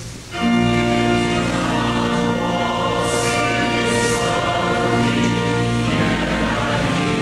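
A choir singing a slow hymn in long held chords, with a short pause for breath right at the start.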